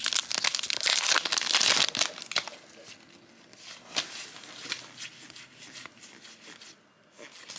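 Trading-card booster pack wrapper crinkling loudly as it is torn open for about two seconds, then a few faint light ticks of handling.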